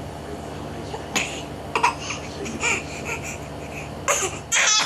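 Baby vocalizing: a string of short squeals and babbling sounds, ending in a longer, high squeal.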